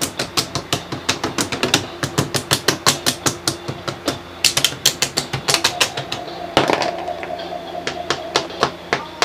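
Hard plastic toys being rapped against a hard surface in fast, sharp knocks, about five a second. There is a short pause about four seconds in and one louder knock about two-thirds through, and the knocks thin out after it.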